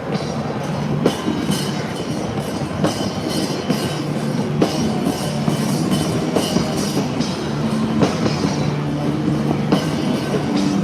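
Rock music with drums: sustained low chords and sharp hits landing on an even beat, about one every second and a half or so.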